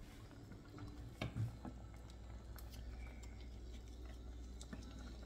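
Faint scattered clicks and soft taps over a low steady hum.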